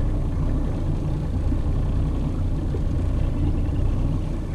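Boat engine idling, a steady low rumble.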